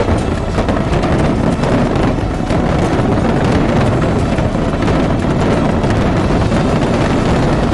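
Loud, continuous rumble of a dense fireworks barrage, with many small crackles and bangs running together.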